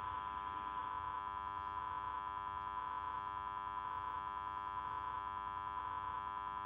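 Steady hum and hiss of an air traffic control radio feed between transmissions, with a slight pulsing about once a second.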